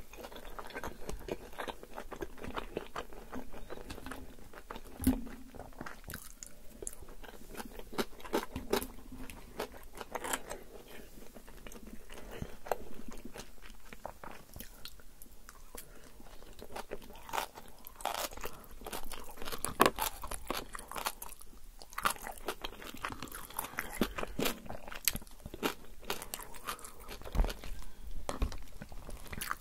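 Close-miked chewing and biting: a person eating yogurt tantuni and shredded red cabbage, with many short crunches and mouth clicks.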